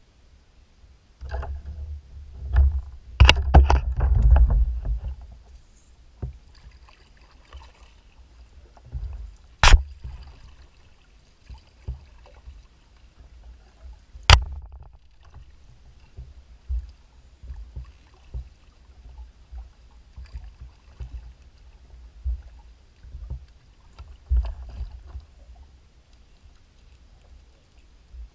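Kayak hull knocking and thumping as the boat moves on the water. The bumps are busiest in the first five seconds, with a few sharp clicks about 3, 10 and 14 seconds in.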